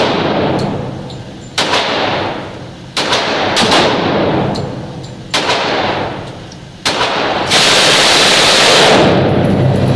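Gunfire ringing off the concrete walls of an indoor range: several sharp shots a second or two apart, each echoing away. About three-quarters of the way through comes an unbroken stretch of very rapid fire about a second and a half long, a long burst from an MG42 machine gun, which fires about 1,200 rounds a minute.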